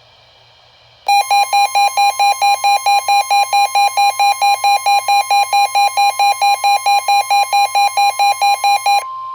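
NOAA Weather Radio warning alarm: a loud steady tone of about 1 kHz (the 1050 Hz alert tone) starting about a second in, with a rapid pulsing beep of about four beeps a second over it; the beeping stops near the end while the steady tone carries on. It announces a special marine warning.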